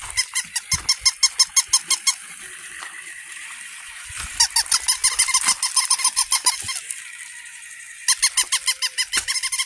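Electronic toy puppy's yapping: rapid, evenly spaced high squeaky yips, about seven a second, in three runs of two seconds or so each.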